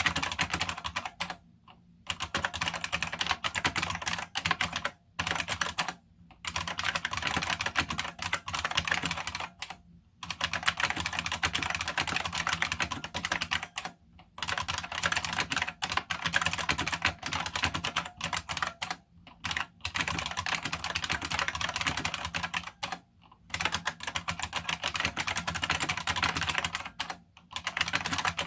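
Fast typing on a Unicomp Model M buckling-spring keyboard: a dense stream of loud, sharp key clicks with the springs' ping, in long bursts broken by short pauses.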